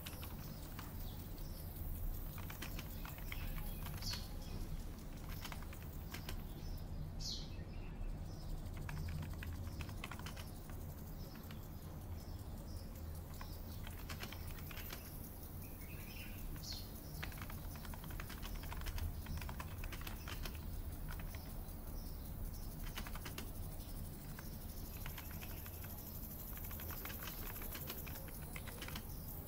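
Computer keyboard typing in irregular runs of clicks, with a few bird chirps and a steady low hum underneath.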